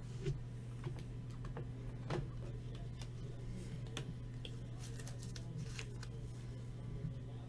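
Trading cards being handled: a few soft clicks and rustles over a steady low electrical hum.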